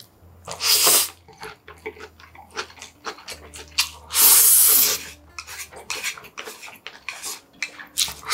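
A person slurping up yakisoba noodles, two loud slurps, a short one about half a second in and a longer one about four seconds in, with wet chewing and smacking clicks in between.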